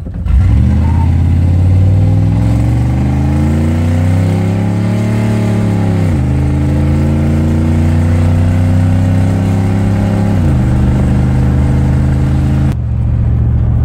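Chevrolet 350 TBI V8 (L05) of a 1990 Silverado K2500 heard from inside the cab, accelerating at full throttle from a standstill: the engine note climbs, drops at an upshift about six seconds in, climbs again and drops at a second upshift about ten seconds in. Near the end the climbing note gives way to a steadier, lower drone.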